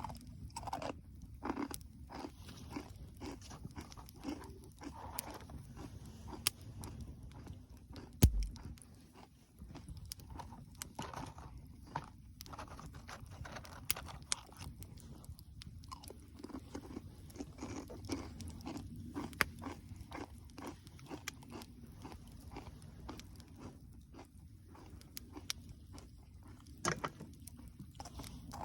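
Dry wood crunching and snapping in irregular clicks, with one sharp, loud knock about eight seconds in.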